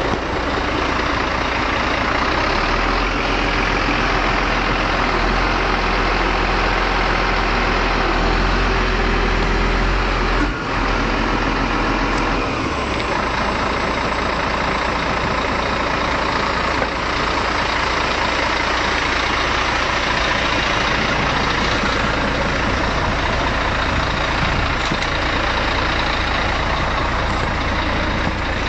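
A heavy engine running steadily at idle, a continuous loud rumble and hiss with only a brief dip about ten seconds in.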